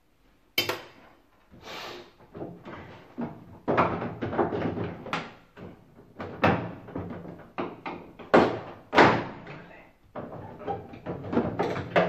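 Plastic control panel and electronic control board of an Indesit washing machine clicking and knocking as they are pried and pulled free of the machine: an irregular string of sharp plastic clicks and knocks.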